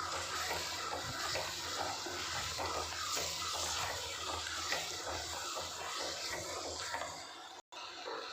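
Onion-tomato masala with spice powders sizzling in oil in a clay pot: a steady hiss with fine crackling. It cuts out briefly near the end.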